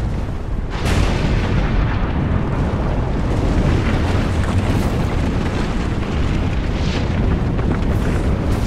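Film sound effects of a volcanic eruption: a continuous deep rumble under a barrage of explosions and crashing impacts, growing sharply louder about a second in.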